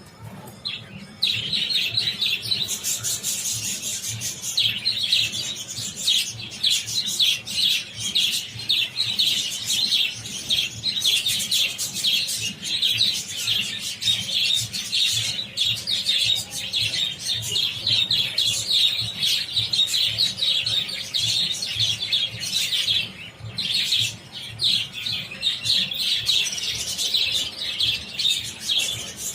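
A flock of around a hundred budgerigars chattering continuously, a dense mass of rapid overlapping chirps.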